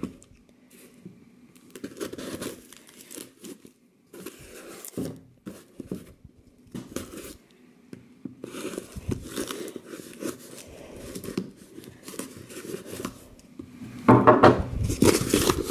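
Box cutter slicing through packing tape along a cardboard box, in short scraping and tearing strokes with pauses between them. Near the end the cardboard is handled much louder, with rustling and crinkling.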